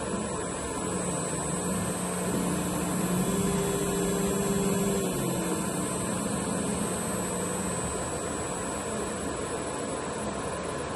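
Rexroth Indramat MHD090B-035 servo motor running on its test run after repair: a steady hum over hiss, with a second tone that rises about two seconds in, holds, and falls back a little past the middle, where the sound is loudest.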